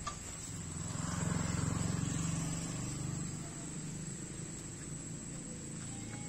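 A motor vehicle's engine running with a low hum that swells about a second in and eases off after about three seconds, over a steady thin high-pitched whine.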